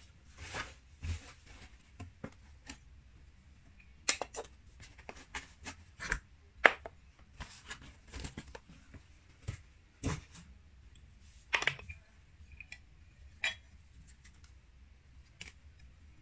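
Cardboard box and packaging handled by hand while unpacking: scattered rustles, scrapes and taps of cardboard and paper, with light knocks of glassware being lifted out and set down.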